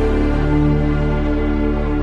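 Background music: soft, slow held synth chords over a low steady drone.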